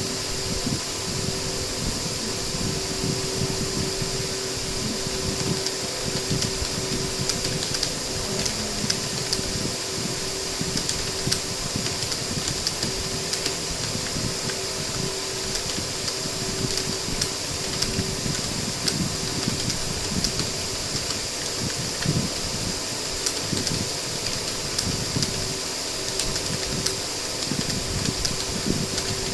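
Computer keyboard typing: a fast, irregular run of key clicks, growing busier after the first several seconds, over the steady whir of a fan.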